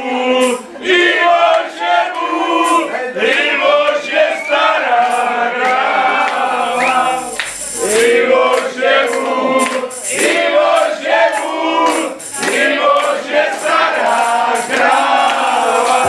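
A group of men singing a song together, loud and unpolished, over a regular sharp beat.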